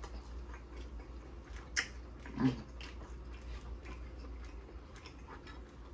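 Quiet eating of Dungeness crab: soft chewing and mouth clicks, with one sharp click about two seconds in and a brief low voiced grunt just after, over a steady low hum.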